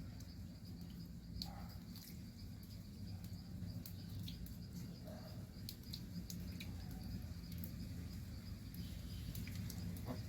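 Faint insects chirring over a steady low hum, with scattered small clicks and a couple of soft, faint calls.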